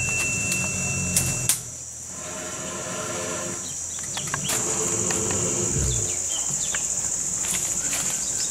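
A steady, high-pitched drone of insects, with scattered faint clicks and rustles. In the first second and a half a flat electronic tone sounds and ends with two sharp clicks.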